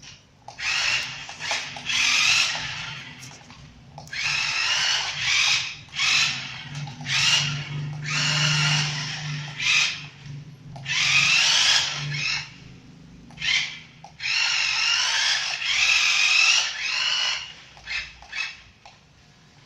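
Small electric drive motor and plastic gearbox of a toy RC car whirring in a string of short bursts, each one to three seconds long. The whine rises in pitch as each burst spins up, over a steady low hum.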